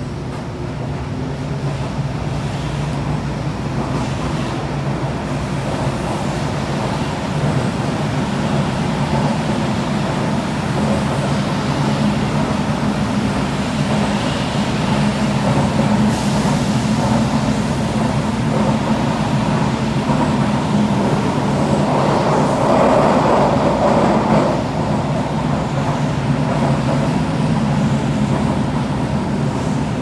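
Running noise of a Toei Oedo Line linear-motor subway train heard from inside the car: a steady rumble with a low hum, growing louder over the first several seconds, with a brief louder rushing swell about three quarters of the way through.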